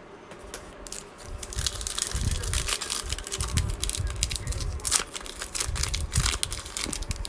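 A trading-card pack's foil wrapper being torn open and crinkled, with the cards handled, starting about a second in.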